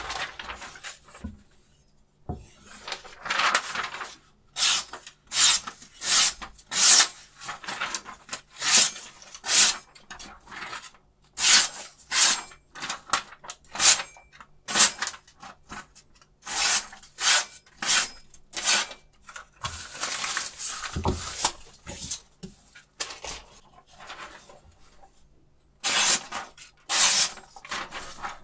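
Freshly sharpened kitchen knife slicing through sheets of paper in many short strokes, each a quick hiss, with paper rustling between them: a paper-cutting test of the new edge. The strokes stop for about two seconds near the end, then go on.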